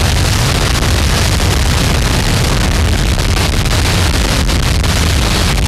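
Harsh noise music: a loud, dense wall of distorted static over a heavy low rumble, unbroken, with a few brief dips in the hiss about four and a half seconds in.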